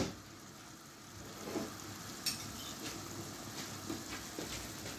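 Pan of spiced tomato sauce with sheep's brain in it, sizzling gently on a gas burner, with a sharp faint click a little after two seconds in.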